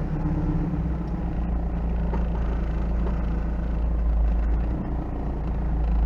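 1986 Toyota off-road truck's engine running steadily at low speed with a deep low rumble, swelling slightly near the end.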